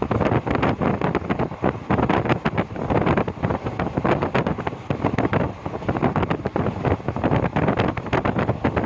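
A moving train heard from on board: a steady running rumble of wheels on the track with frequent rattles and knocks, and wind buffeting the microphone.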